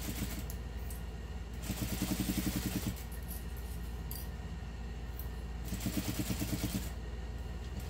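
Juki industrial sewing machine stitching a seam in two short runs of about a second each, a rapid, even clatter of needle strokes, over a steady low hum.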